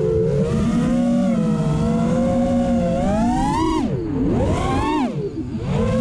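FPV racing quadcopter's four brushless motors and propellers whining, heard from the camera on board. The pitch rises and falls with the throttle, climbs sharply just before four seconds in as the quad flips over, then drops low and quieter about five seconds in before picking up again.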